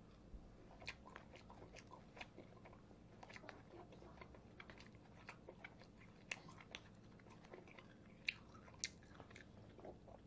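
Faint, close-miked chewing and wet mouth smacks of a person eating, with scattered sharp clicks throughout. The loudest clicks come twice, about half a second apart, near the end.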